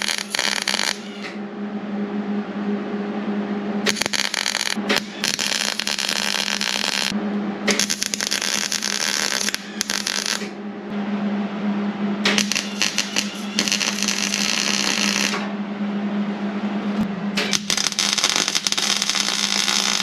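MIG welder crackling as it lays plug welds through drilled holes in a sheet-steel floor patch panel, in several separate bursts of two to three seconds each. A steady low hum runs under the welds and between them.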